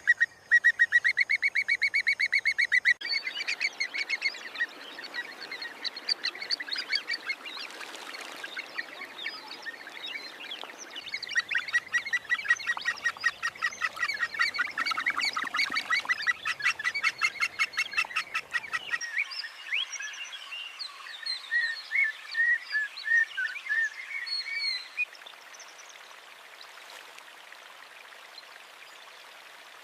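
African jacanas calling in rapid runs of sharp, repeated notes, with scattered chirps a little past the middle. The calls stop about 25 seconds in, leaving a faint steady background hiss.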